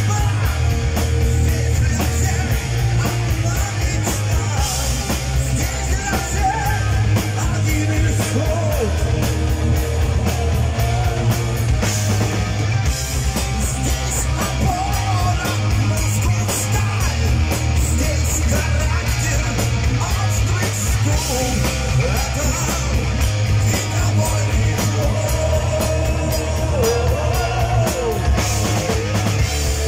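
Live heavy-metal band playing: electric guitars, bass guitar and a drum kit with constant cymbal hits, under male vocals sung and shouted into microphones.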